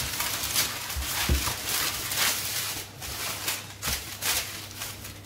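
Parchment paper crinkling and rustling in waves as a plastic rolling pin is pushed back and forth over dough between the sheets. A couple of soft knocks on the countertop.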